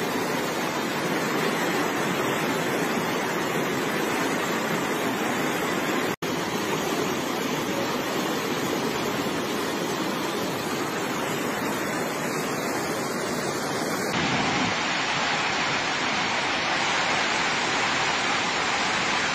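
Fast floodwater rushing and churning through a street, a steady rushing noise. It cuts out for an instant about six seconds in, and its character changes about two-thirds of the way through.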